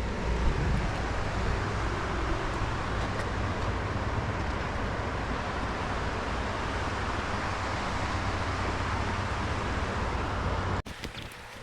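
Steady vehicle road noise with a low engine hum, cutting off suddenly near the end.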